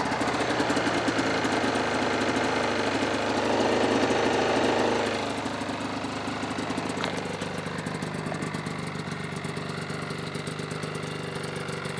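1998 Yamaha Vmax XTC 600 snowmobile's two-stroke twin engine running, its top end freshly rebuilt. It runs a little higher for the first five seconds, then drops back to a steady idle.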